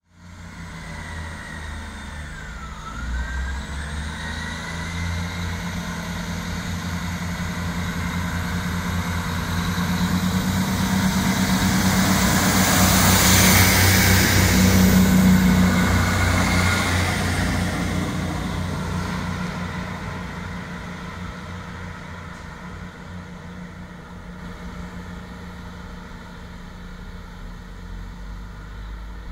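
Class 158 diesel multiple unit pulling away from a station under power. Its underfloor diesel engines grow louder as the cars pass close by, loudest about halfway through, then fade as the train leaves. A high whine rises in pitch over the first few seconds.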